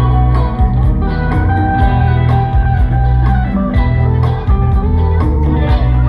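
Music: an instrumental passage with guitar over a bass line and a steady drum beat, in a blues style.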